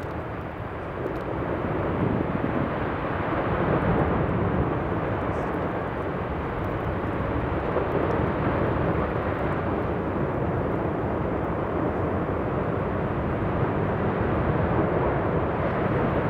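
Volcanic lava fountain erupting close by: a loud, steady, dense rushing rumble of gas and molten spatter jetting from the vent, mixed with wind on the microphone.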